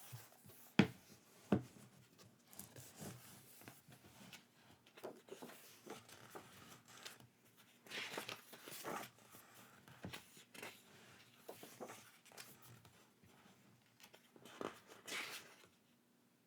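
Packaging and merchandise being handled and unwrapped: irregular rustling and scraping, with two sharp knocks about a second in.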